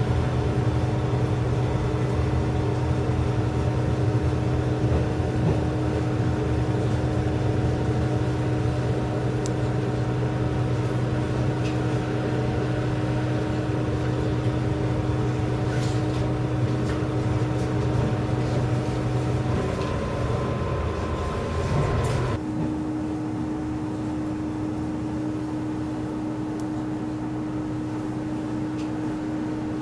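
Diesel railcar running, heard from inside the car: a steady engine drone with a low hum and the rumble of the ride. About 22 seconds in, the engine note drops suddenly and the low hum falls away, leaving a quieter steady hum.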